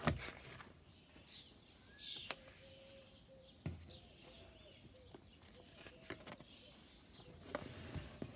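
Small birds chirping at intervals, with a few soft taps and rustles of a hardback picture book's pages being handled and turned; the loudest tap comes right at the start.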